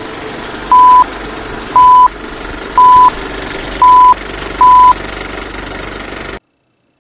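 Film-countdown-leader sound effect: a steady old projector rattle with five loud short beeps of one pitch, about one a second, counting down. The sound cuts off suddenly about a second before the end.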